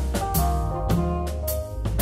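Band playing an improvised funky jazz-fusion groove: drum kit hits over held chords and a steady bass line.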